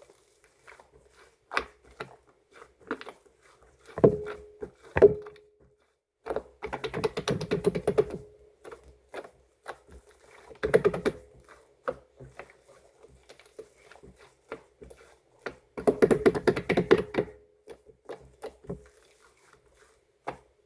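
Slime being squished and poked by hand, giving scattered sticky clicks and pops with three longer bursts of dense crackling. There are two sharp thunks about four and five seconds in.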